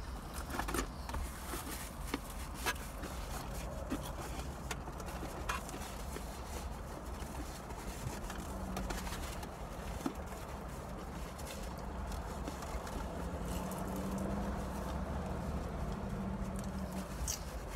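Quiet eating sounds: scattered soft clicks and rustles of hands, food and takeout containers, with a bite into fried chicken near the end, over a steady low hum inside a car.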